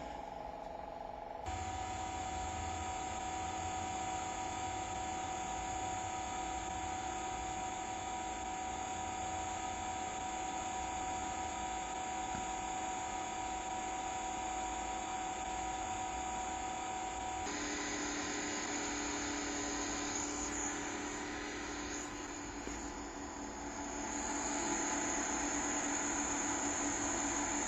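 Steady mechanical hum with a high, even whining tone over a noisy rumble. The sound shifts abruptly about a second and a half in and again about two-thirds of the way through.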